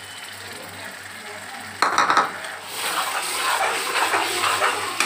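Steel ladle stirring tomato paste into frying masala in a metal kadai, the oil sizzling. About two seconds in the ladle clatters against the pan, then scrapes and stirs steadily.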